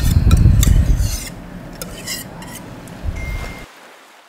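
Thick milk and cornflour paste scraped from a steel saucepan into a glass bowl of whipped cream. A loud, dull low sound with metal clicks in the first second is followed by a wire whisk stirring and rubbing through the mixture.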